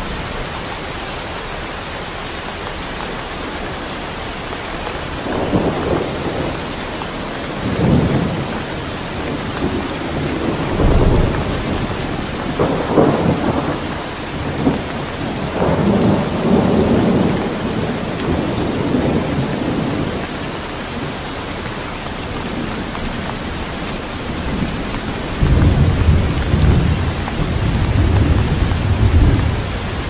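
Steady rain with rolling thunder: several rumbles come and go through the middle, and a long one builds near the end.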